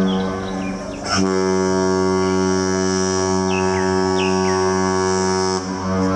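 Cruise ship's horn blowing a deep, steady blast. It breaks off about a second in, then sounds again in a long blast that stops shortly before the end, with two short high chirps in the middle.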